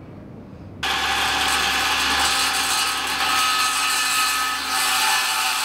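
Handheld cordless power tool cutting into a wooden board. It starts suddenly about a second in and then runs steadily and loudly.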